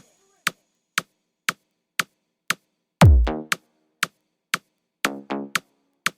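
Electronic dance music with a drum-machine beat: a sharp click twice a second, a loud deep bass hit about three seconds in that falls in pitch, and a few pitched synth stabs near the end.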